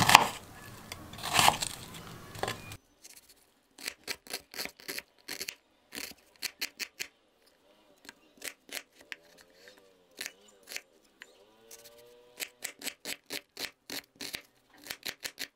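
Chef's knife dicing a raw onion on a wooden cutting board: many short, sharp chops of the blade through the onion onto the board, uneven in spacing and often in quick runs of several a second.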